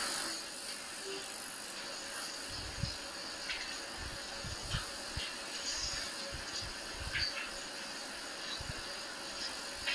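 Room tone during a pause in speech: a steady hiss with a few faint low thumps.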